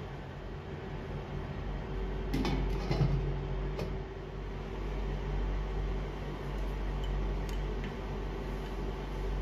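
A glass lid is set onto a large stainless steel pot with a few clanks and brief ringing, about two to three seconds in and once more near four seconds. Under them runs a steady hum, fitting an induction cooktop's cooling fan.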